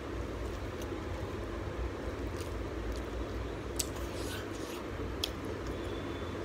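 Eating by hand: fingers squishing rice and prawn curry together, then chewing, with a couple of sharp mouth clicks about four and five seconds in, over a steady low background hum.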